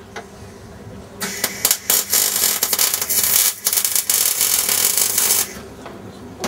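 A loud, harsh hiss in several spurts with short breaks, starting about a second in and stopping abruptly about four seconds later.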